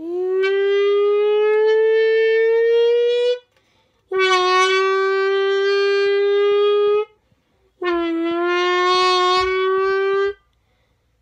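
A person sounding into an empty drink can to imitate a Lamborghini engine: three long held notes with short gaps between them, the first rising slowly in pitch.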